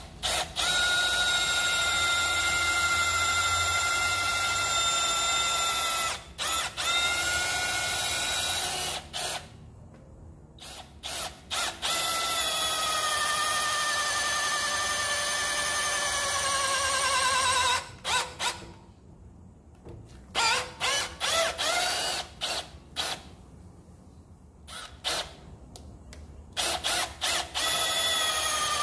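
Milwaukee M12 cordless rotary hammer running with a steady motor whine in long runs, the trigger let off and pulled again several times. Near the end come a number of short on-off blips. The whine sags slowly in pitch during the longer runs.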